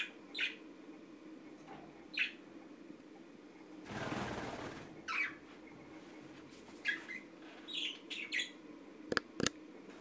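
Pet budgerigars giving short, high chirps every second or two, over a low steady hum. A second-long burst of rushing noise comes about four seconds in, and two sharp clicks come near the end.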